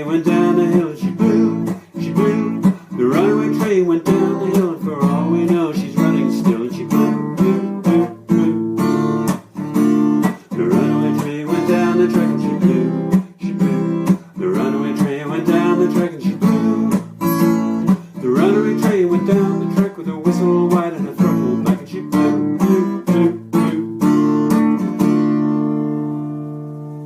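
Acoustic guitar strummed in a steady rhythm, playing the instrumental close of a song, ending about 25 s in on a final chord left to ring out and fade.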